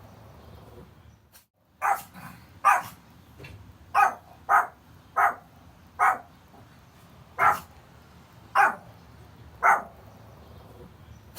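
A puppy barking: about nine short, sharp barks at uneven intervals, starting after a brief silence near the start.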